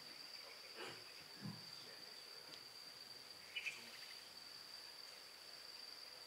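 Near-quiet room with a steady high-pitched whine throughout. A few faint soft knocks and rustles sound, with two small clicks a little past halfway.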